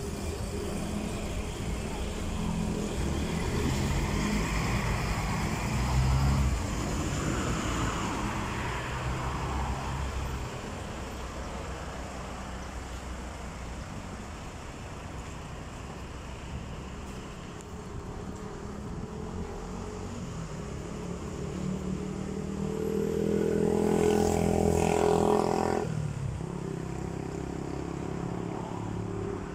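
Background road traffic: a steady engine rumble of passing vehicles. A louder engine builds from about 22 seconds in and stops abruptly a few seconds later.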